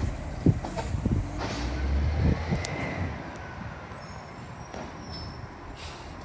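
Garbage truck engine running as the truck moves off, growing louder for a couple of seconds and then fading after about three seconds.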